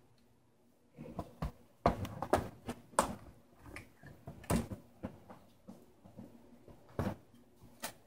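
Irregular clicks and knocks of a laptop's plastic case parts being worked apart by hand, a piece held on small plastic dowel pins that resists coming free. The clicks start about a second in and come every fraction of a second.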